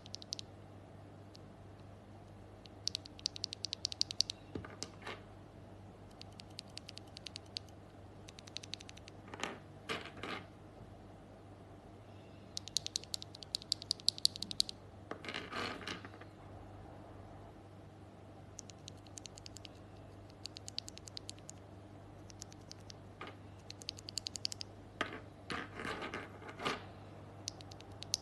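Typing on a mechanical keyboard fitted with MMD Princess Holy Panda v2 tactile switches: quick runs of key clicks in bursts of a second or two, with a few heavier single keystrokes, over a faint steady hum.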